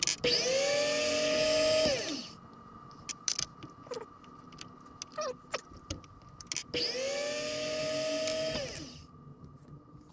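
Small electric bench tool motor, used for truing clock wheel pivots, run up twice: each time it rises in pitch as it spins up, runs steadily for about a second and a half, then winds down. Light clicks and handling knocks between the two runs.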